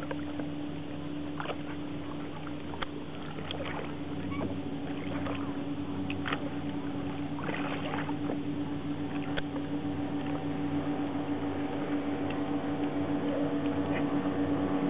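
A boat motor running with a steady hum that slowly grows louder toward the end, with a few faint clicks and knocks over it.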